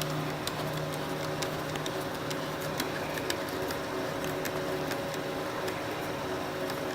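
A hand tool tightening a worm-gear hose clamp on a car's air intake tube: scattered, irregular light clicks and ticks over a steady low background hum.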